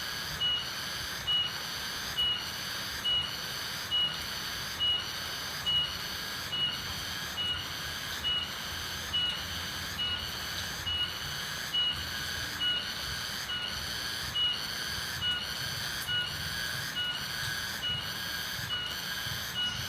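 A high, whistling call with a hissing buzz, repeating steadily a little over twice a second, over a low rumble, in village countryside ambience.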